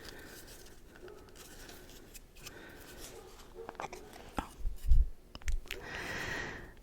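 Make-up packaging being handled up close: soft scratching and rubbing, a few sharp taps around the middle, and a short rustle near the end.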